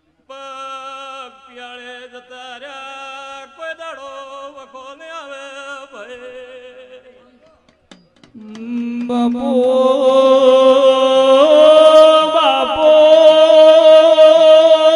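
Male devotional chant-singing (a Gujarati dhun) through a PA system, with wavering, melismatic notes. After a short break about eight seconds in, it comes back much louder, with long held notes over musical accompaniment.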